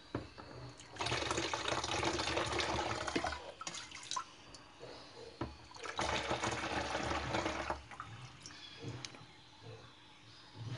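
Liquid poured through a strainer and plastic funnel into a plastic bottle, in two pours of about two and a half seconds and two seconds, with a few light clicks between them.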